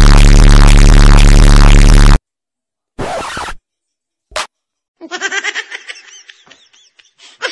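Edited-in comedy sound effects. First comes a deafening, distorted blast lasting about two seconds. After a short burst and a click comes a quick, high, choppy laugh starting about five seconds in.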